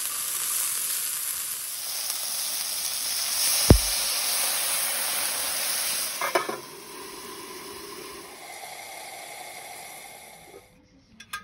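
Chicken cartilage sizzling in oil in a nonstick frying pan while it is stirred with chopsticks, with one sharp tap about four seconds in. After a few knocks around six seconds, the sizzle drops to a quieter, steady hiss under a glass lid, then stops near the end with a couple of light clicks.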